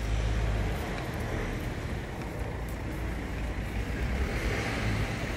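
Steady low rumble of town-centre traffic and street noise.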